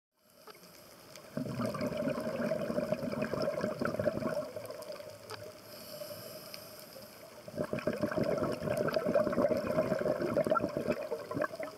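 Scuba diver's regulator breathing, heard underwater: two long bursts of bubbling exhalation, each about three seconds, a few seconds apart.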